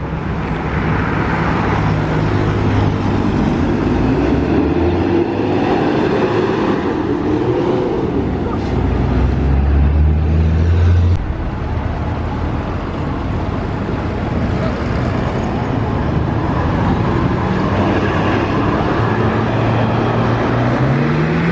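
Heavy road traffic passing close by: bus and other vehicle engines running. A loud low engine drone builds and then drops off suddenly about eleven seconds in, and near the end an engine note rises as a vehicle accelerates.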